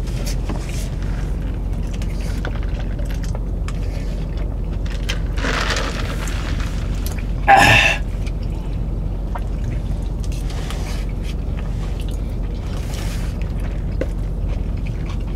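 Steady low hum of a running car, heard inside its cabin, with two brief louder noises about a third of the way and halfway through.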